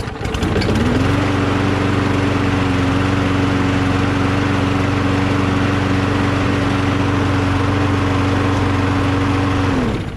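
Briggs & Stratton Quantum engine on a Craftsman 21-inch push mower starting, coming up to speed within about a second and running steadily. It is shut off near the end and winds down.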